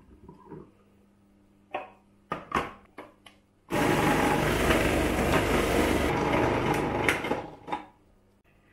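A few light knocks as potato pieces go into the feed chute of a Feelvita food processor. About four seconds in, its motor starts abruptly and runs for about four seconds, grating raw potatoes through the fine grating disc, then winds down.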